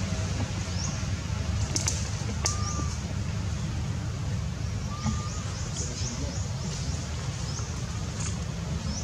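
Birds chirping in forest, short high chirps scattered throughout, with two short whistles about two and a half and five seconds in, over a steady low rumble.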